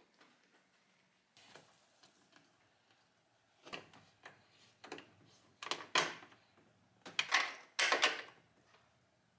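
Plastic knocks and scrapes from an E39 BMW 5 Series headlight housing being seated back in the car and fastened at its top with a hand tool. The sound comes as a handful of short, separate bursts, the loudest about six and eight seconds in.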